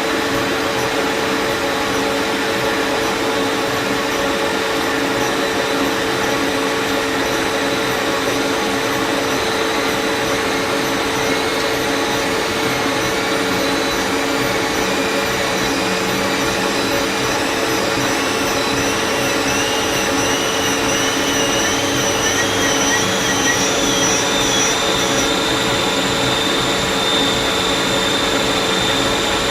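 Lathe running with a steady mechanical hum. About a third of the way in, a warbling whine begins to climb slowly in pitch, and near the end it settles into a steady high tone.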